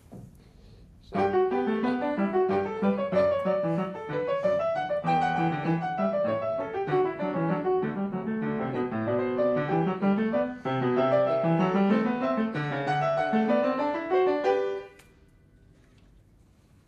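Upright piano playing a short melodic passage with a moving bass line, starting about a second in and breaking off abruptly near the end.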